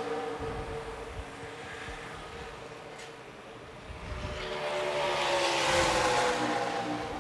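Racing V8 engine running at high revs on the track, heard at a distance: it swells as the car approaches and then fades, dropping in pitch as it goes by.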